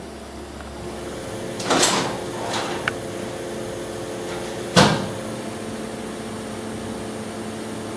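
Steady hum of workshop machinery, with two short knocks about three seconds apart; the second, a little before the middle, is the sharper and louder one.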